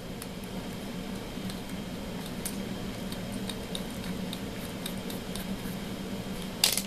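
Faint metallic clicks of a 3/32 in. drill bit being handled and fitted into a drill chuck, with a short rattle of clicks near the end as the chuck is tightened. A steady low hum runs underneath.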